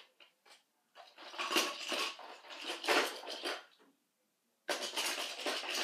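Toy trains clattering against each other as they are handled, in a spell of rattling knocks that stops briefly and starts again near the end.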